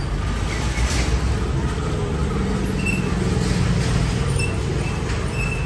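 Street traffic: vehicle engines running and passing in a steady low rumble, with a few short high peeps.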